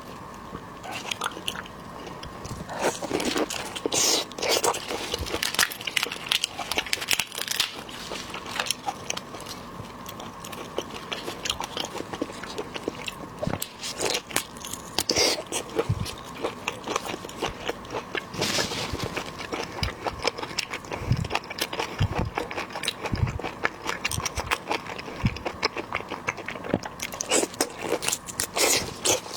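Close-up eating of cooked shrimp: shells crackling and clicking as they are peeled and bitten, with chewing. The clicks come in irregular clusters throughout.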